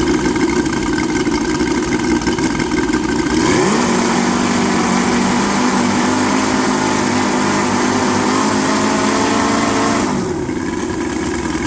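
A pair of UMS 5-55 model-aircraft radial engines, each turning a 20x8 wooden XOAR propeller, running during break-in. They run at low speed, rise to a higher speed about three and a half seconds in, hold there, and drop back to idle about a second before the end. At the higher speed the two engines are not quite in sync.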